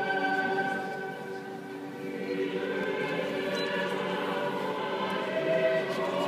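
Choir singing long, held notes, with a brief dip in loudness about a second and a half in.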